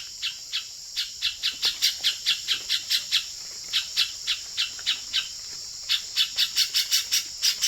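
A bird giving a rapid series of short, sharp alarm calls, about four or five a second, with a brief pause about three seconds in. A steady high insect drone runs underneath.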